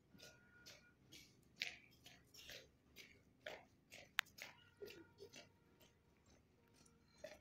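Faint footfalls of cadets' boots marching in step on wet paving, about two steps a second, with one sharp click about four seconds in.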